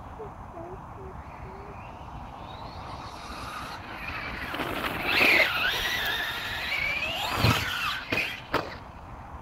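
Radio-controlled motorbike's motor whining, rising and falling in pitch as it speeds up and slows across the snow, loudest about five and seven seconds in. Near the end the pitch drops sharply with a thump, then a couple of short knocks as the bike reaches the ramp.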